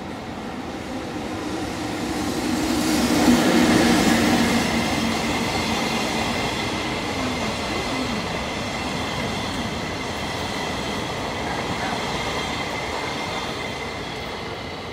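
EF65 electric locomotive passing at low speed, loudest about three to four seconds in, then the towed, unpowered new Keikyu 1000-series cars rolling by on steel wheels with a steady high-pitched wheel squeal.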